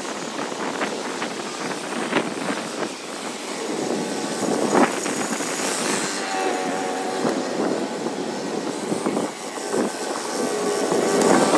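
Small gas engine of lawn-care equipment running, with many short sharp clicks and crackles on top, and a steadier engine tone coming through from about halfway.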